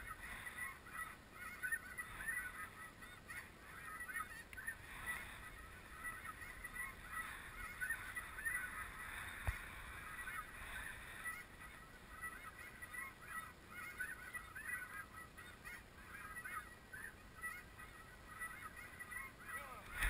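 A flock of snow geese calling: many short, overlapping honks that go on without a break, faint.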